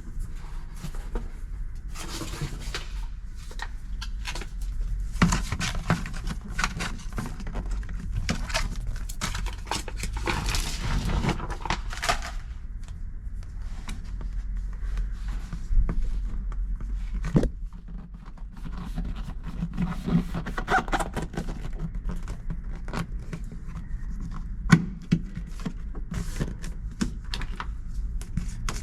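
Clicks, knocks and scraping from hands-on work inside a car, such as handling trim and sound-deadening mats, over a low steady hum. There is a sharper knock past the middle and another near the end.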